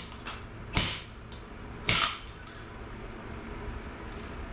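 Sharp metal knocks from the Yamaha XT225 front fork being rammed to drive out the fork oil seal: two loud strikes about a second apart with lighter taps between, then the knocking stops.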